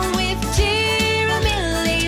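Upbeat children's song music: a held, gliding melody line over a bass line and a steady beat.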